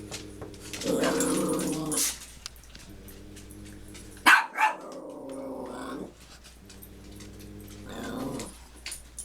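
A dog growling in several stretches, with two sharp yaps in quick succession about four seconds in, the loudest sounds.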